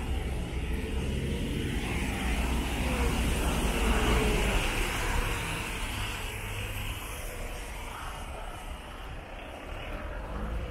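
A car passing on wet asphalt, its tyres hissing on the rain-soaked road, over a steady low traffic rumble. The hiss swells to its loudest about four seconds in, then slowly fades.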